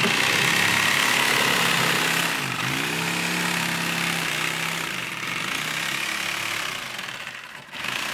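Corded Black & Decker reciprocating saw cutting an access hole into the foam-filled seat of a small boat. The motor speed sags and picks back up a few times, and the cutting eases off briefly near the end before starting again.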